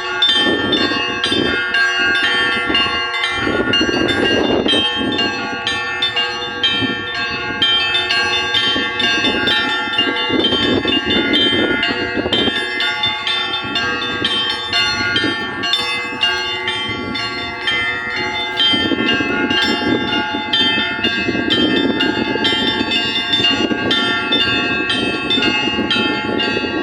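Russian Orthodox church bells ringing a continuous peal: several bells of different pitches struck over and over in a quick rhythm, their ringing overlapping without a pause.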